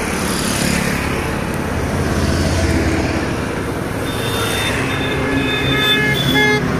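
Road traffic with motorcycle engines passing close by. In the second half a horn sounds in a string of short toots.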